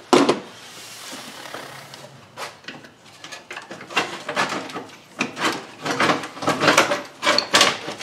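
Hands working engine-bay parts loose: a sharp knock at the start, a short stretch of rubbing, then irregular clicks, knocks and rattles as pieces are wiggled and shifted.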